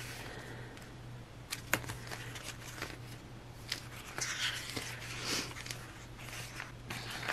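Paper sticker sheets in a sticker book being flipped and handled: paper rustling and crinkling with scattered light clicks and taps, heaviest about four to five seconds in, over a steady low hum.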